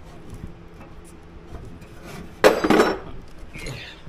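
Loose metal hardware and a wrench clinking as they are handled, with one louder metallic clatter lasting about half a second midway.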